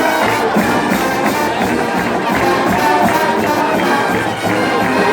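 Marching band playing, loud and continuous.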